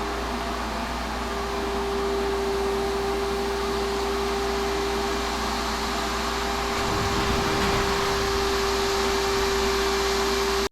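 Vacuum running steadily with a constant motor whine, sucking old sandblasting media out of a sandblaster tank.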